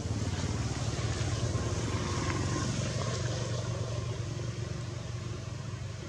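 Low, steady engine hum of a passing motor vehicle, swelling over the first couple of seconds and fading toward the end.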